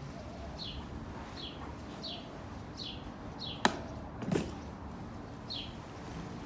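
A bird calls over and over, a short falling chirp about once every two-thirds of a second. A sharp click comes a little past the middle, then a duller knock, like gear or a case being handled.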